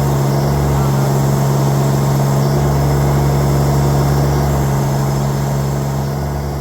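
Compact tractor diesel engine running at a steady speed with a constant low hum, fading away near the end.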